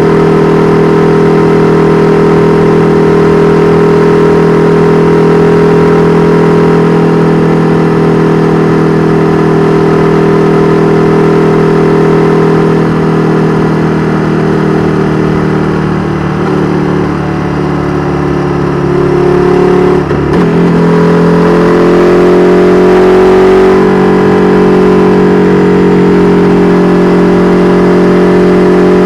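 KTM 1290 Super Duke R Evo's V-twin engine through an Austin Racing V3 Mini exhaust, running at a steady note on the move. About halfway through its pitch falls and it gets quieter as the bike eases off; a brief break about twenty seconds in is followed by a steady, louder note again.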